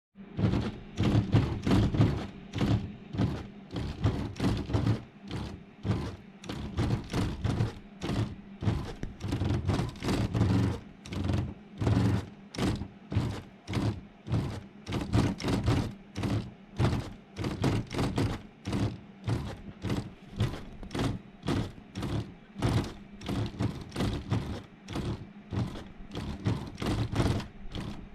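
Canon G6030 inkjet printer running with an abnormal noise: loud, irregular mechanical knocking and clacking, about two or three a second, over a steady low hum. The printer still prints normally, and the owner takes the noise for a sign of trouble after about 10,000 A4 pages in five months.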